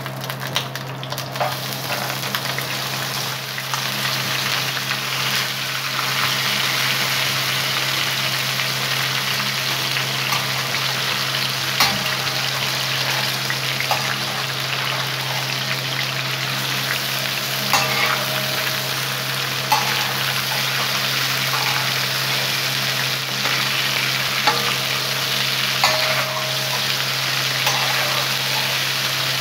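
Raw mutton pieces sizzling in hot oil on a flat iron tawa griddle; the sizzle builds over the first few seconds as the meat goes in, then holds steady. A few short sharp clicks stand out now and then.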